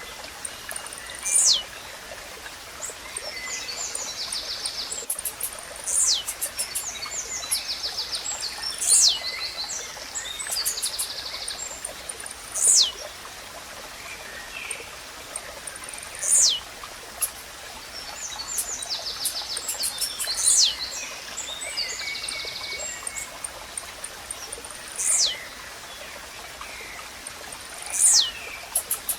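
Blue-black grassquit (tizil) repeating a short, high song note that sweeps steeply downward, eight times at intervals of about three to four seconds. Beneath it runs a steady stream of running water, and other small birds trill and chirp faintly.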